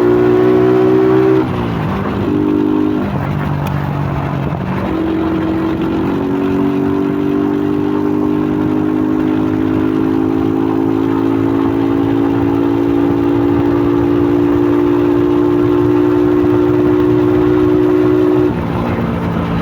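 2001 Suzuki Fiero's 150 cc single-cylinder four-stroke engine, breathing through a K&N pod air filter, pulling the motorcycle along. Its note drops and picks up a few times in the first five seconds, then holds a long steady run with slowly rising pitch, and falls away as the throttle closes near the end.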